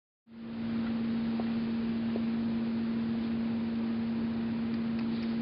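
A steady mechanical hum: one strong low tone with fainter higher tones over a hiss, holding at an even level. It starts a moment in, after a brief dropout to silence.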